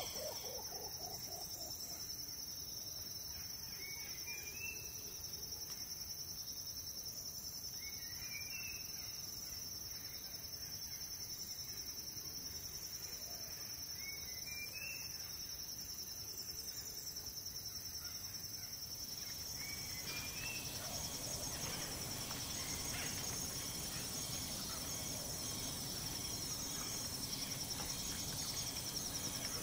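Tropical forest ambience: a steady high-pitched insect drone, with a short run of three or four rising bird chirps every few seconds. A low rustling background noise grows in the second half.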